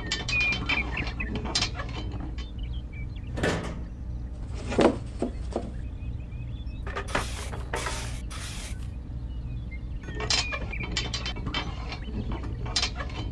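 Small hard parts clicking and knocking as they are handled, with three short hissing bursts midway and a steady low hum underneath.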